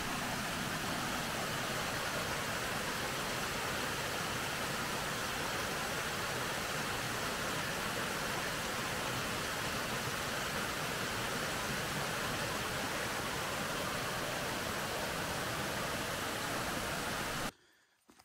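A mountain creek rushing steadily over mossy boulders and small cascades. It cuts off suddenly near the end.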